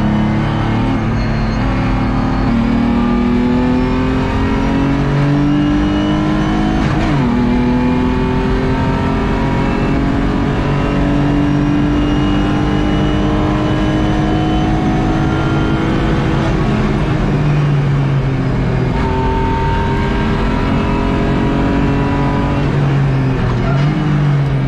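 BMW E36 race car's engine heard from inside the roll-caged cabin, pulling hard under acceleration. Its pitch climbs, drops sharply at an upshift about seven seconds in, then climbs again in one long pull. The note falls away around sixteen seconds in, holds steadier, and there is another quick shift near the end.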